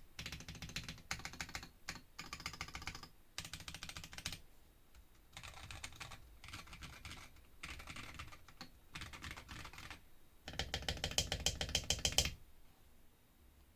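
Typing on a Womier K66 mechanical keyboard fitted with Akko CS Rose Red linear switches: runs of rapid keystrokes in short bursts with brief pauses. The fastest and loudest run comes near the end and stops about a second and a half before the end.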